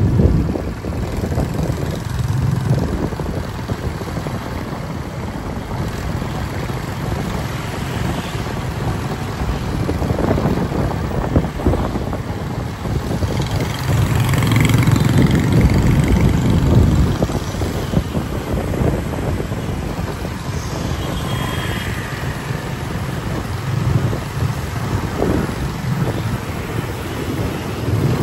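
Steady low rumble of motor vehicle noise, swelling for a few seconds about halfway through.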